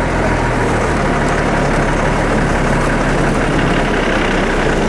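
Off-road vehicle's engine idling steadily, heard from its open cab, with a small lift in pitch about half a second in.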